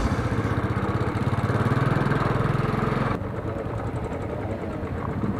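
Royal Enfield single-cylinder motorcycle engine running at low speed on a rough gravel track, with a steady rapid pulse. About three seconds in, the sound drops a little and turns duller.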